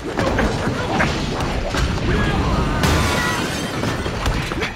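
Fight-scene sound effects: a rapid run of punch and kick impacts and thuds, with a loud crash about three seconds in.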